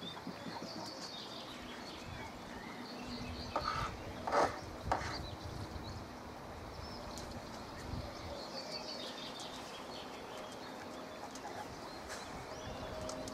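Small birds chirping on and off over a quiet outdoor background, with a few short knocks and clatters about four seconds in from handling a paint tin and brush.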